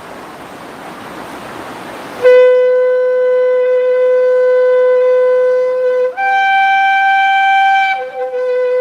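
A soft hiss for about two seconds, then a 67.5 cm shofar with a very small mouthpiece sounds one long loud blast: a held note that about four seconds later jumps up to a higher note for nearly two seconds, then drops back to the first note and keeps sounding.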